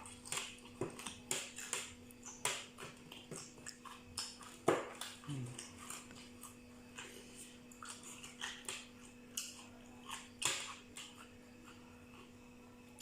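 Close-up mouth sounds of a person eating spicy seafood salad: irregular wet smacks and chewing clicks, over a steady faint hum.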